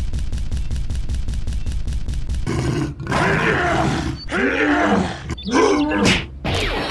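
A fast, even chugging, then from about two and a half seconds in, a run of loud monster roars and growls: dubbed creature sound effects for a toy dinosaur and a toy Hulk figure wrestling.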